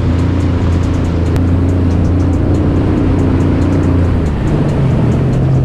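Yamaha WaveRunner personal watercraft engine running steadily at trolling speed. Its low note shifts to a slightly higher one about four and a half seconds in.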